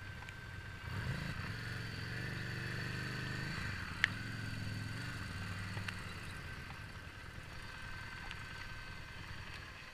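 Harley-Davidson Street 750's V-twin engine running at low revs while the motorcycle rides slowly; the engine note swells about a second in and eases off after about six seconds. A single sharp click about four seconds in.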